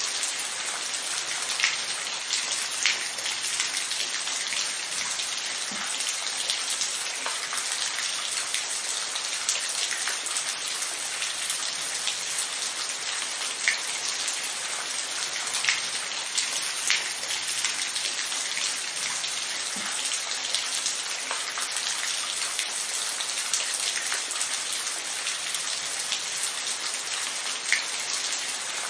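Steady rain falling, an even hiss with scattered distinct drops landing close by.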